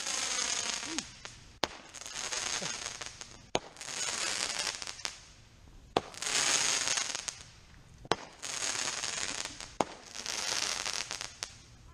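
Ground-launched consumer firework firing spark-trailing shots one after another, about every two seconds. Each shot is a sharp pop followed by a loud hiss as the burning shot climbs.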